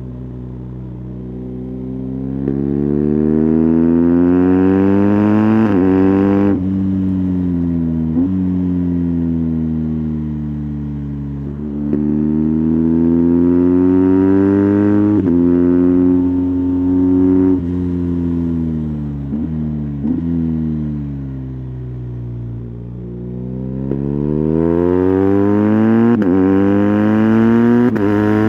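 2020 BMW R 1250 GS boxer twin through an SC Project titanium slip-on exhaust with its dB-killer fitted, heard from the rider's seat at speed. The revs climb hard through the gears, the pitch dropping suddenly at each upshift, then ease off and fall away for a while before climbing again in another pull near the end.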